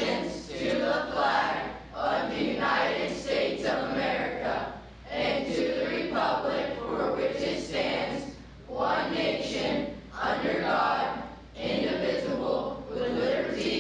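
A group of voices reciting the Pledge of Allegiance in unison, phrase by phrase with short pauses between phrases.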